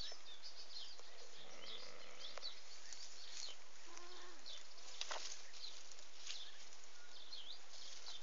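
Small birds chirping over and over in short, quick calls against a steady outdoor hiss, with a few light rustles of grass stalks close by.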